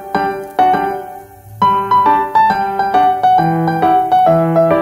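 Background piano music: a gentle melody of struck notes over chords, with a brief lull about a second in.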